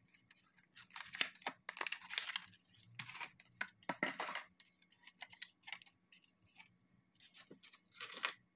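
Packaging of a replacement phone battery being opened and handled: a cardboard box and plastic tray rustling and scraping, with light clicks and taps, in several bursts.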